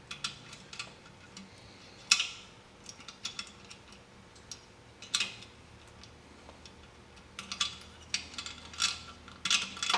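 Scattered small clicks and taps of metal parts and wires being handled and fitted on a compressor's pressure switch, with a few louder knocks about two, five and nine seconds in.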